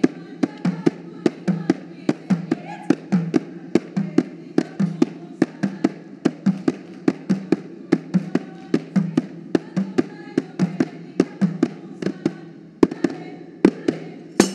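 Saman Ratoh Jaroe body percussion: a row of kneeling dancers clapping and slapping their bodies in unison, sharp beats at about four a second over a low steady drone. Near the end the beats thin out to a few hard, separate hits.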